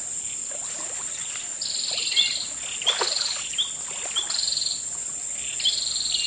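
Steady high-pitched insect drone with wild birdsong over it. A bird repeats a short buzzy, falling phrase about once a second, mixed with sharp chirps.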